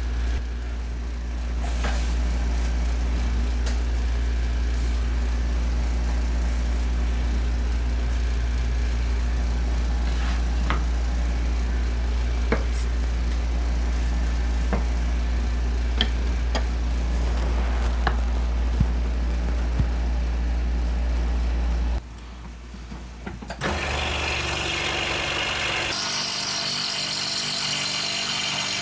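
Woodworking shop machinery running: a steady low motor hum with scattered clicks and taps. About 22 s in it drops briefly, then gives way to a louder, hissing power-tool sound.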